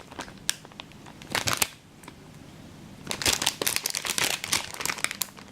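Packaging being handled, rustling and crinkling in short bursts: briefly about half a second in, again around one and a half seconds, and in a longer run of crackles from about three to five seconds.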